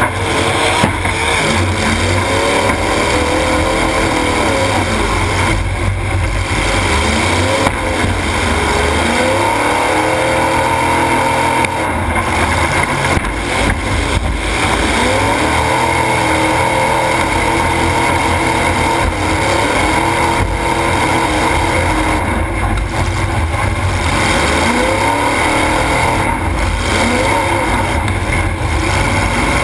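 Demolition derby car engine revving up and down again and again as it is driven hard, heard from inside the car, with a sharp bang about a second in and another near eight seconds.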